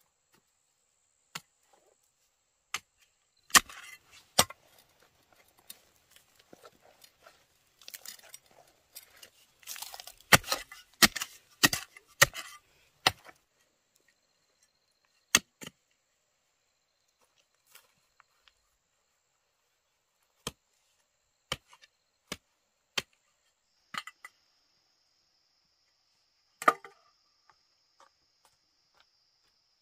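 A blade chopping into wood: sharp, separate strikes, spaced out at first, then a quick flurry of several blows in the middle, then scattered single strikes again.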